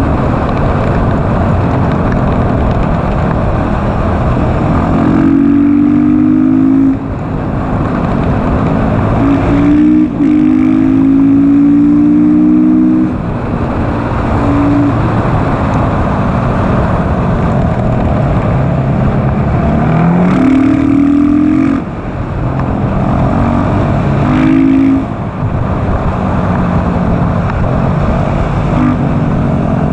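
KTM SMC R supermoto's single-cylinder engine run hard at speed, revs climbing again and again, with about five short dips as the rider shifts or lifts off the throttle, over steady wind noise.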